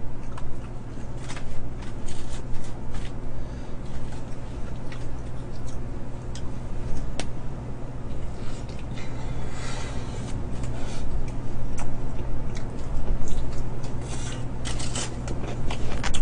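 Close-miked eating sounds: biting into and chewing fried chicken drumsticks, with rustling of the aluminium foil they sit on and scattered small clicks, over a steady low hum.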